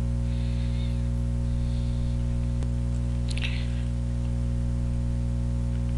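Steady low hum with a stack of evenly spaced overtones, holding level throughout, with a faint tick and a short faint hiss about halfway through.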